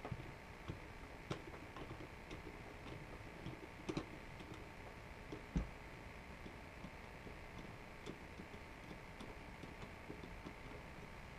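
Small scattered clicks and taps of hands working on an AR-style rifle's parts, with a louder, low knock about five and a half seconds in.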